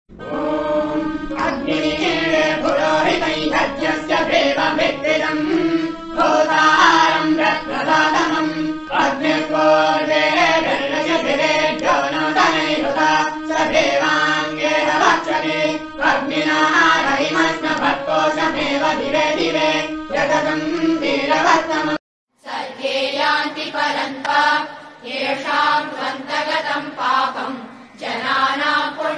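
Devotional Hindu chanting sung as music over a steady low held tone. It breaks off about 22 seconds in, and after a short silence another recording of chanting begins.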